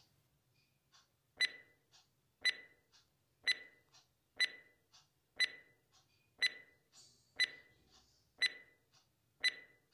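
Clock-ticking sound effect for a countdown timer: a sharp tick about once a second, with a fainter tick between each pair, starting about a second and a half in and running for nine seconds.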